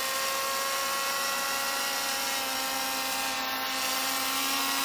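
Electric quadcopter's motors and propellers hovering: a steady, many-toned buzzing whine whose pitch holds level. The battery is down to about 3.6 volts a cell, so it needs more throttle to hover.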